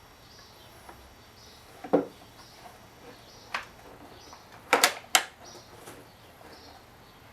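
A few sharp clicks and knocks, the loudest a close pair about five seconds in, with a faint high chirp repeating about once a second in the background. The chainsaw engine is not running.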